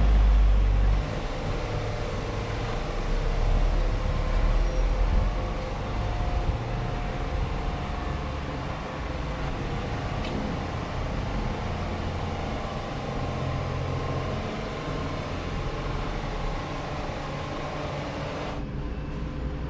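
Steady low rumble with an even hiss and no distinct knocks or clicks. Near the end the hiss suddenly drops away, leaving a duller background.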